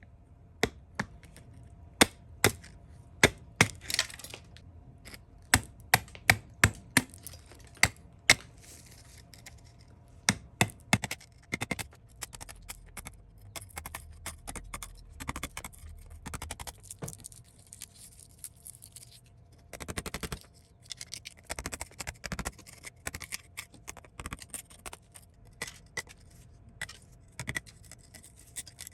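Metal parts of a rusted Colt Model 1908 pistol clicking and clinking as it is handled, in sharp irregular knocks that are loudest in the first few seconds. Later come stretches of scraping and scratching between the clicks.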